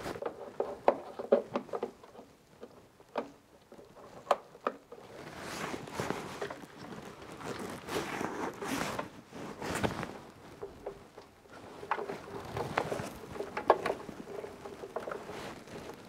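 Hands fitting a plastic CT clamp and its lead around the electricity meter's incoming tails: scattered sharp plastic clicks with cable and clothing rustling between them.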